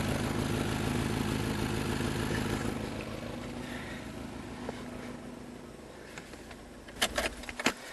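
1998 Subaru Forester's flat-four engine idling, puffing through a leaking exhaust with holes, a crack and a blowing catalytic converter. It grows fainter over the first half, and near the end a few sharp clicks come just before the engine sound stops.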